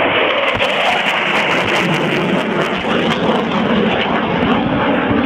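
Loud, steady jet noise from a Panavia Tornado's twin RB199 turbofan engines as the jet flies by.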